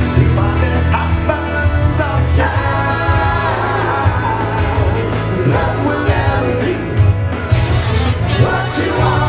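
Live band playing an upbeat rock-and-roll song with singing, guitar and a strong bass line, the drums played on a kit made from kitchen pots and pan lids.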